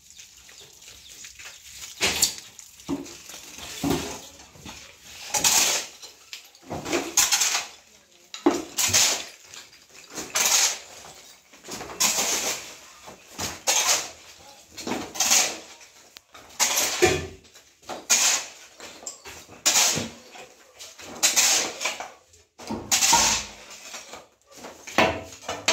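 A long-handled tool scraping and scooping broken clay-brick and plaster rubble off a hard floor, one stroke about every second and a half.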